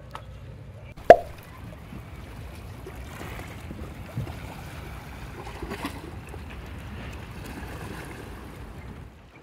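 Small waves washing and sloshing among broken concrete shoreline rocks, with a sharp knock about a second in.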